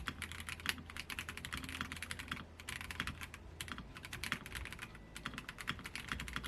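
Royal Kludge RK-H81 mechanical keyboard with brown switches being typed on fast, a rapid, dense stream of key clacks with a brief lull about two and a half seconds in.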